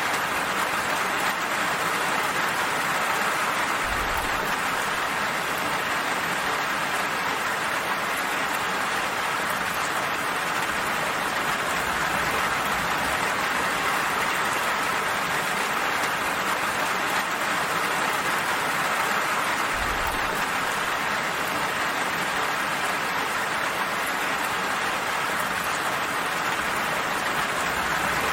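Gentle rain falling steadily, an even hiss that does not change in level.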